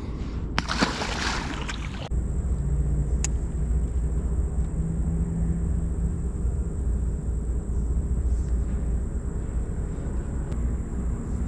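A short splash about a second in as a released fish goes back into the water, then a boat motor running low and steady.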